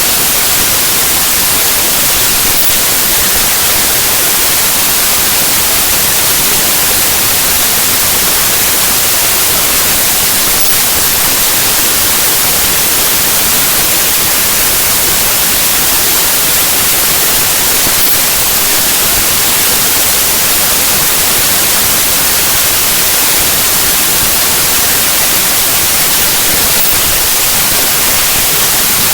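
Loud, steady hiss of static: the raw bytes of a compressed zip archive played back as 8-bit unsigned audio, which comes out as near-random noise, strongest in the highs and unchanging throughout.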